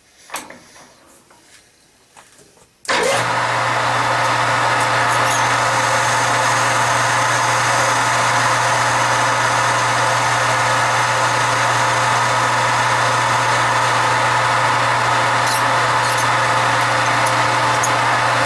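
A couple of sharp clicks, then about three seconds in a metal lathe starts and runs steadily and loudly, with a strong low hum and a mix of steady higher tones, while it takes a light skim cut on a steel knob.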